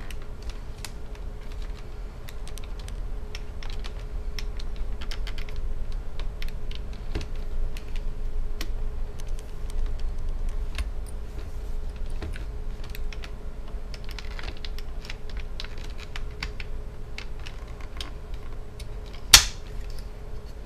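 Plastic laptop screen bezel being pried loose along its edge with a small flathead screwdriver: a run of small clicks and crackles as its clips give, with one sharp snap near the end as a clip pops free.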